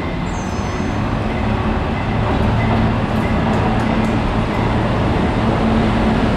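R77E electric locomotive hauling a subway work train, approaching slowly through the tunnel into the station. Its steady rumble and motor hum grow gradually louder.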